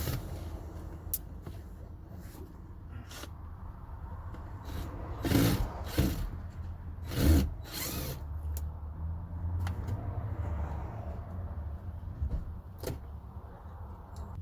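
Tool and handling noises from a car's rear door being taken apart: scattered clicks and knocks, and a few louder short bursts about five and seven seconds in. A steady low hum runs underneath.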